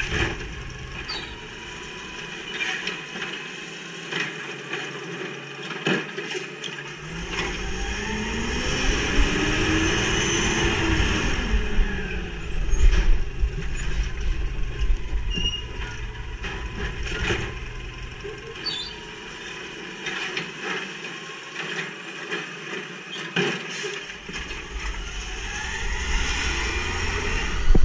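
Natural-gas automated side-loader garbage truck working its arm: the engine revs up and back down as the hydraulic arm lifts and dumps a cart, with clanks and knocks from the arm and cart.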